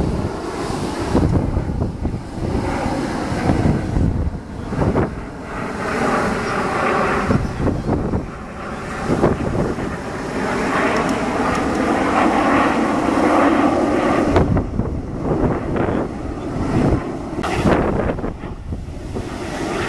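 A formation of Aermacchi MB-339 jet trainers flying past, the sound of their turbojet engines swelling and then falling in pitch as they pass, loudest a little past the middle. Wind buffets the microphone throughout.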